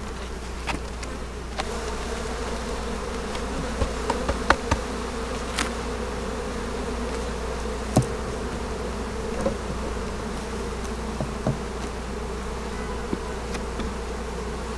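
Honeybees buzzing steadily around an opened hive, a dense hum of many bees, with a few sharp knocks, the strongest about four and a half and eight seconds in.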